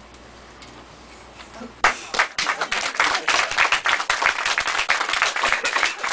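Audience applauding: a faint room hum, then many people start clapping together about two seconds in and keep going.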